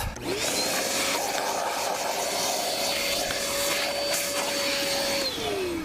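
Electric vacuum cleaner switched on for a clean-up of drilling debris: its motor whine rises as it spins up, runs steadily with a loud airy hiss, then falls as it is switched off near the end.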